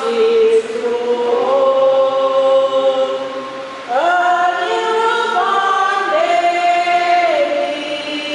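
Choir singing a slow hymn in long held notes, with a new phrase starting about four seconds in.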